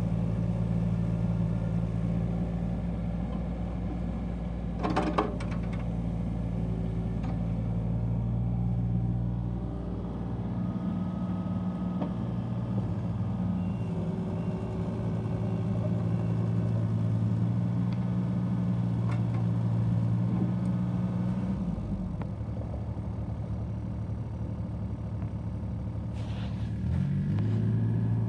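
John Deere 35C mini excavator's diesel engine running steadily under load while the arm and bucket work a gravel pile, with a sharp clank about five seconds in. A little past two-thirds of the way through the engine note drops, then rises again in pitch near the end as the engine speeds back up.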